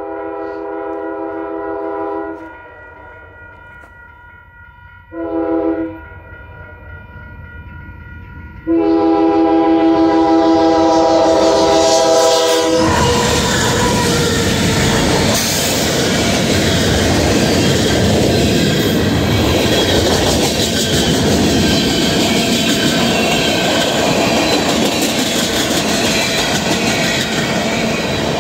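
Union Pacific diesel locomotive's multi-chime air horn sounding for the grade crossing: the tail of a long blast, a short blast about five seconds in, then a final long blast that cuts off about 13 seconds in as the locomotive reaches the crossing. The loud rumble of the locomotive and its tank cars rolling past follows.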